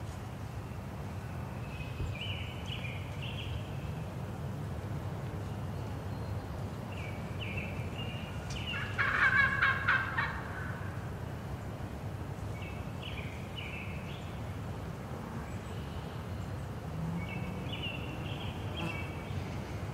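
Wild turkey gobbling once, loud and rattling, about nine seconds in. Short high calls come in small groups before and after it.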